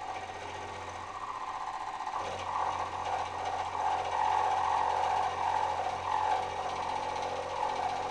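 Milling machine with an end mill side-milling the steel shank of a drill bit: a steady cutting sound with a fast, even ripple, getting louder from about two seconds in as the cut takes hold.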